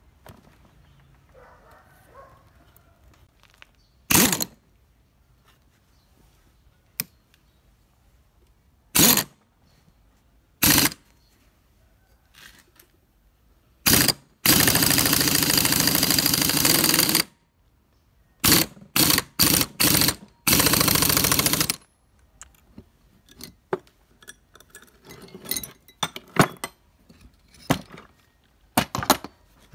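Pneumatic impact wrench hammering in short bursts, with one longer run of about three seconds, spinning the forcing screw of a gear puller to draw a rust-seized pulley off the engine shaft. After the bursts, metal tools clink and knock on the wooden workbench.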